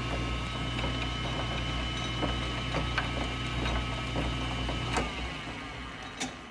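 South Bend lathe running on a hand-stitched serpentine belt: a steady motor hum with a gear whine and a light tick about every three-quarters of a second. About five seconds in the motor stops and the lathe spins down.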